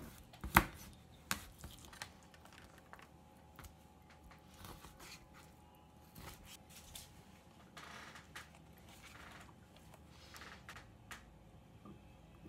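Kitchen knife cutting raw fish fillets into pieces on a plastic cutting board: light, irregular taps of the blade against the board, the sharpest about half a second in, with quieter slicing and handling sounds between.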